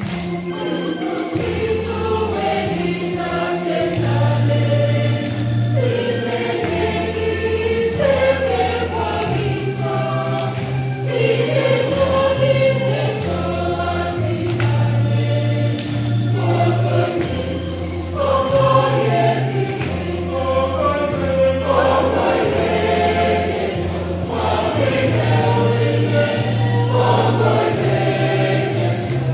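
Church choir singing a gospel hymn together, many voices at once, over a low bass line of held notes that change every second or two.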